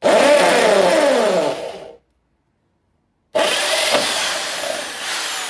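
Electric drill with a 9/64-inch bit boring a hole through a fan motor's end housing beside the bushing. It runs in two stretches of about two seconds each, its pitch sagging as the bit bites, with a sudden gap of silence between them.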